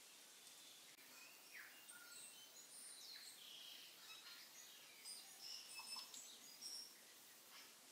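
Faint birdsong: scattered short high chirps and whistles, with a few quick falling notes, over a low steady hiss.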